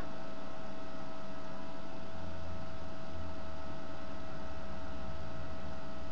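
Steady hum and hiss with a faint, steady whistle from an FM radio receiver tuned to the ISS downlink on 145.800 MHz, the channel open but nobody talking between transmissions.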